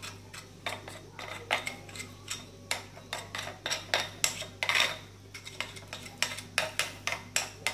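A spoon stirring cornstarch and plain yogurt into a thick paste in a small gold-rimmed saucer, clicking and scraping against the dish a few times a second.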